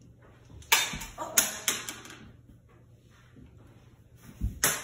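A small fetch toy clattering and bouncing, about five sharp knocks coming closer together in the first two seconds, then two more knocks near the end.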